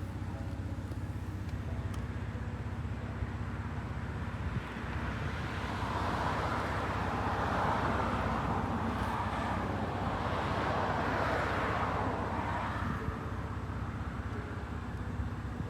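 Steady low outdoor traffic rumble, with a passing vehicle whose noise swells and fades over several seconds in the middle.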